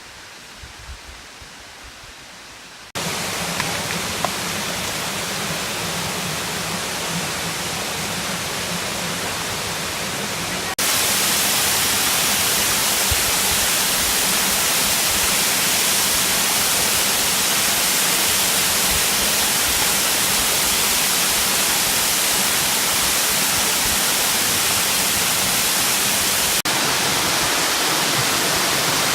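Steady rush of falling water from a mountain waterfall, cutting abruptly to a louder rush about three seconds in and again about eleven seconds in, then slightly quieter near the end.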